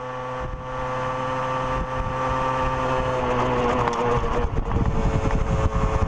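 Motorcycle engine running at a steady speed, fading in and growing louder, its pitch dipping slightly about four seconds in. A low rumble of wind and road noise builds beneath it in the second half.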